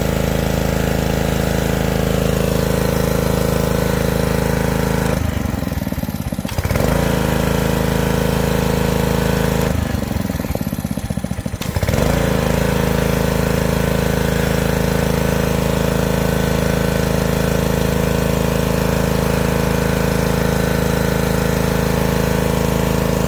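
Honda engine of a Ryobi gas pressure washer running steadily at high speed while the spray wand hisses. Twice, for a second or two, the hiss drops away and the engine note shifts, then climbs back.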